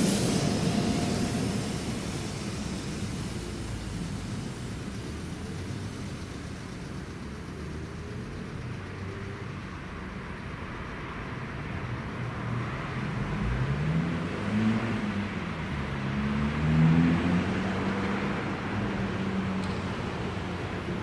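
Trains passing an elevated multi-line stretch: a passing train fades out over the first few seconds, then an electric train's motor whine rises and falls in pitch as it passes, loudest a few seconds before the end.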